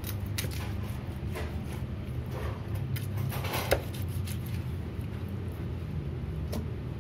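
A steel cleaver cutting through a raw chicken leg quarter on a wooden cutting board, making scattered knocks and slicing scrapes as it separates the thigh. The sharpest knock comes about three and a half seconds in. A steady low hum runs underneath.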